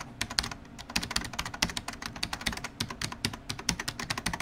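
Computer-keyboard typing sound effect: a quick, uneven run of light key clicks, several a second.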